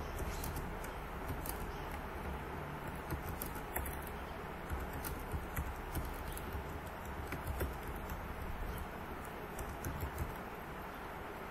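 Computer keyboard being typed on: irregular, unevenly spaced key clicks over a steady low hum and hiss.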